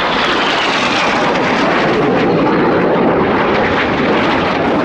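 BAE Hawk T1 jets flying past, a loud steady rush of jet noise with a high whine that falls in pitch over the first two seconds.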